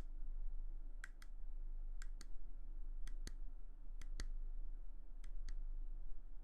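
Sharp, crisp clicks made close to the microphone as an ASMR trigger, coming in quick pairs about once a second, over a steady low hum.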